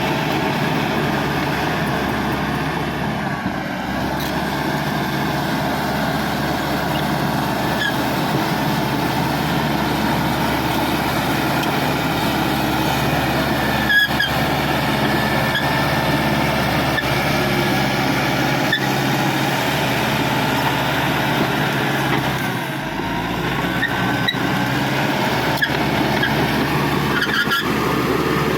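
Caterpillar D5K XL bulldozer's diesel engine running steadily under load, dipping briefly twice, with a few sharp knocks and clanks from the machine.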